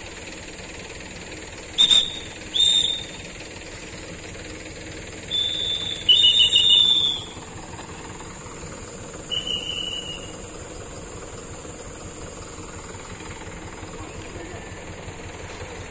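Traffic policeman's whistle blown in blasts: two short toots about two seconds in, a long blast from about five to seven seconds, and a shorter one near ten seconds. A truck engine idles steadily underneath.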